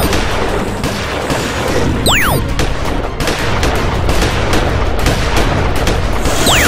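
Loud action background music with booming hits, and a swooping effect that glides up and down at once, about two seconds in and again near the end.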